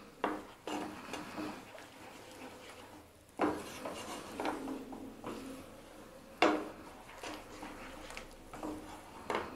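Wooden spatula stirring thick, creamy curry gravy in a non-stick frying pan: soft scraping with a few sharper knocks against the pan, the loudest about three and a half and six and a half seconds in.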